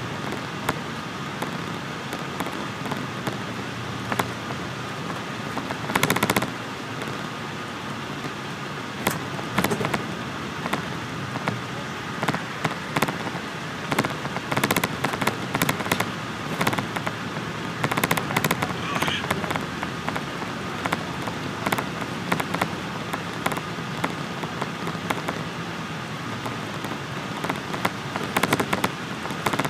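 Cabin noise of a 2005 MCI D4500CL coach bus at highway speed: a steady rush of road and engine noise with a faint steady whine, broken by frequent sharp rattles and clicks that come in clusters several times.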